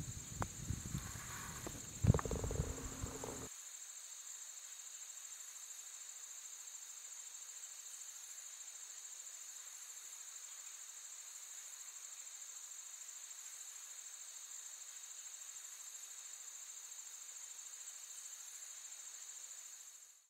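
Steady, high insect chirring that runs unchanged and cuts off just before the end. Over it in the first three seconds or so come low knocks and thuds, the loudest a sharp knock about two seconds in.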